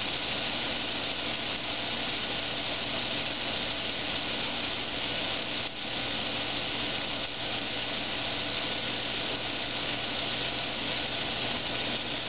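Steady mechanical whirr of the small motor and gears turning a kinetic LED flower-wheel sculpture, under a constant hiss.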